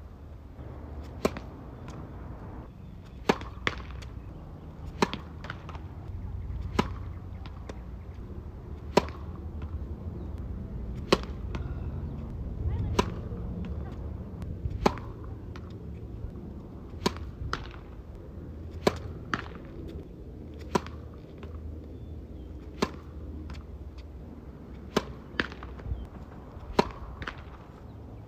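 Tennis serves: the racket strikes the ball with a sharp pop about every two seconds, a few of them followed within half a second by a second, fainter knock. A low steady rumble runs underneath.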